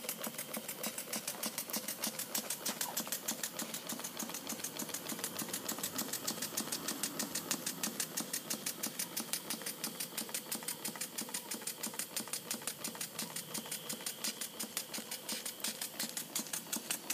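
Model entablature steam engine running steadily on steam from a Stuart boiler: an even, rapid beat of about six to seven exhaust strokes a second, with steam hiss and light mechanical clatter.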